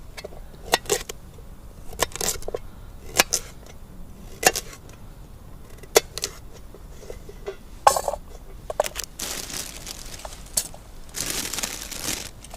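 Sharp knocks and cracks at irregular intervals, roughly one a second, followed near the end by two longer stretches of rustling hiss.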